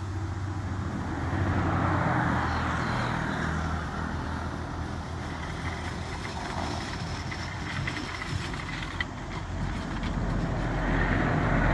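A motor vehicle's engine runs with a steady low hum, with swells of louder noise about two seconds in and near the end.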